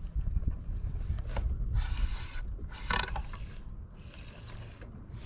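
Fishing reel being cranked, a light mechanical whirring with small clicks, over a steady low rumble.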